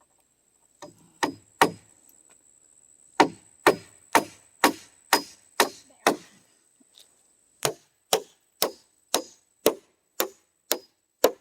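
Hammer driving nails into wooden floor framing by hand: about twenty sharp blows in three runs, roughly two a second, with short pauses between runs.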